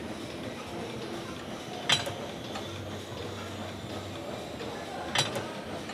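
Leg curl machine clanking twice, about three seconds apart, each a quick metallic double click as a rep ends, over faint gym background noise and distant voices.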